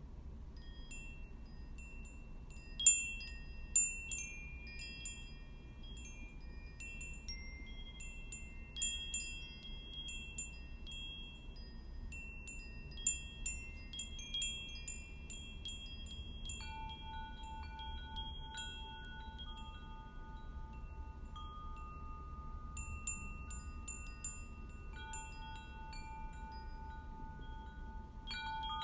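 Chimes ringing in a loose, irregular scatter of high, clear ringing tones, with a few louder strikes about three to four seconds in. From just past halfway, lower held tones join in, one of them pulsing rapidly.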